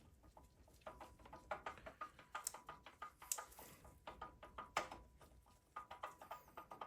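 Faint, irregular metal clicks and taps, some in quick little runs, from a hand wrench working the nut off the cam gear bolt.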